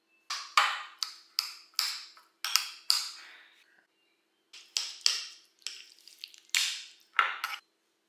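Hard kitchen items clinking and clacking as they are handled and set down: about a dozen sharp strikes in two quick clusters with a short pause between them.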